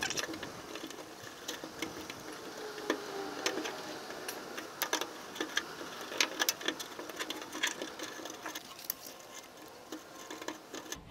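A rubber fuel hose and its clamp being worked off the metal fuel line at the gas tank's sending unit by hand: irregular light clicks, taps and rubbing.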